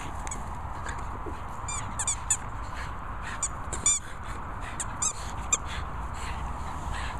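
Two small pug-cross dogs, a jug and a chug, playing tug-of-war over a rope toy, with a series of short high-pitched squeaks, the loudest about four seconds in.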